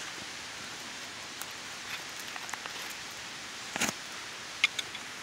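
Faint handling of a taped stack of phone books: paper pages rustling and the stack being shifted, with one short scuff about four seconds in, over a steady background hiss.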